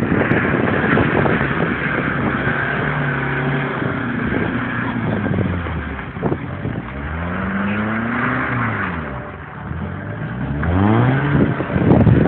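Small hatchback's engine revving hard, its pitch climbing and dropping several times as the car spins its wheels and slides on packed snow.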